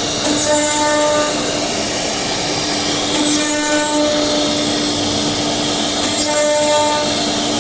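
High-speed spindle of a 5-axis CNC router running while it trims the edge of a carbon-fibre composite part: a steady whine with a hiss of cutting. A harsher, brighter surge comes about every three seconds.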